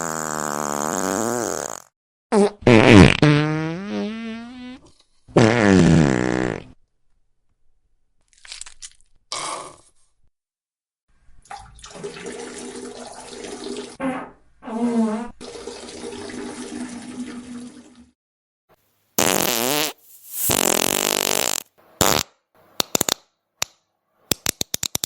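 A string of separate farts, some short and some drawn out, several with a wavering, falling pitch and one running on for several seconds. A quick run of short pops comes near the end.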